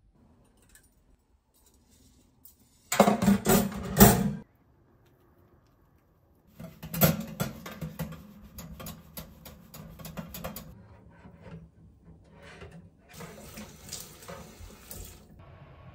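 Water running from a kitchen tap into a stainless steel sink in short spells, about three seconds in and again near the end, with a sponge scrubbing a stainless steel dish-drying rack in between in quick scratchy strokes.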